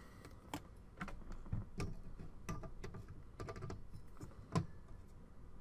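Irregular light clicks and knocks of a CPU heatsink being set onto a motherboard and shifted to line it up over its screw posts, a sharper knock near the end.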